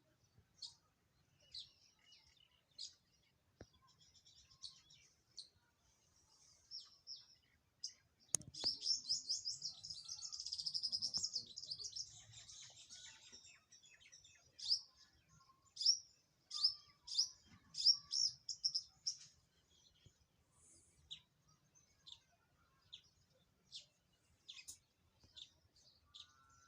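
Wild birds chirping and calling: scattered short high chirps, then a dense twittering run about a third of the way in, followed by a quick series of loud repeated chirps that thins out toward the end. A single sharp click comes just before the twittering.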